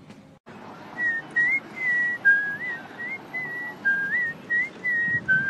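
A person whistling a tune, a run of short notes with small slides between them, starting about a second in over a steady background hiss.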